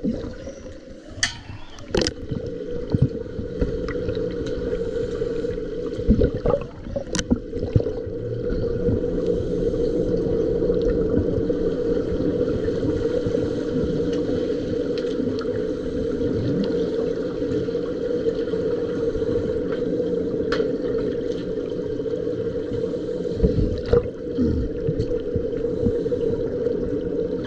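Muffled underwater sound heard by a camera submerged in a swimming pool: a steady low hum with bubbling and gurgling, and a few sharp clicks and knocks, most clearly near the start and about seven seconds in.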